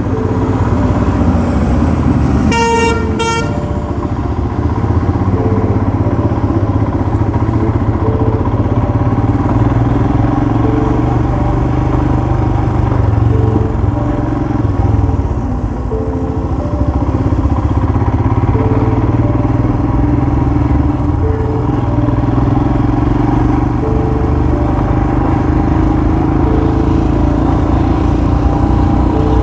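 Motorcycle engine running steadily at low speed while riding slowly over a rough, wet dirt track. A horn honks once briefly about three seconds in.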